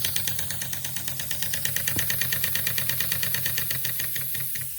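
Steam pump on a live-steam model locomotive running with a fast, even beat of about seven to eight strokes a second, fading out near the end into a steady hiss.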